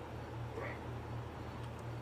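Steady low hum with a short faint rising squeak about half a second in.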